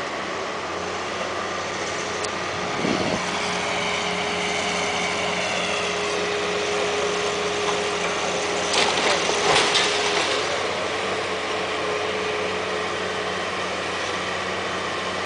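Long-reach demolition excavator's engine running steadily as its arm tears into a brick building, with a short crash about three seconds in and louder crashing of falling masonry around nine to ten seconds.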